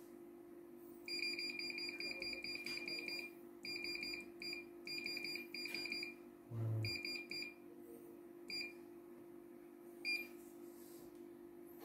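Control-panel key beeps of a CNY E900 computerised embroidery machine: a fast run of short high beeps as a button is held to scroll the design list, then shorter runs and single beeps. A steady low hum runs underneath, with a soft thump about halfway.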